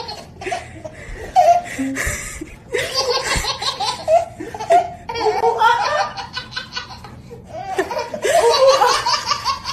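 A baby laughing hard in several separate bursts of belly laughs.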